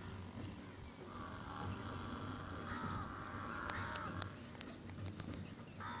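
Crows cawing several times over a low rumble. A few sharp clicks come in the second half, the loudest a little past halfway.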